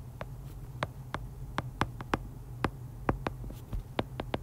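Stylus tip clicking on a tablet's glass screen while words are handwritten: sharp, irregular taps several times a second over a steady low hum.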